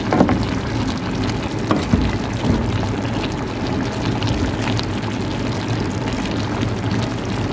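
Paksiw broth of fish and vegetables simmering in a pan over a gas flame: a steady bubbling hiss with a few light clicks.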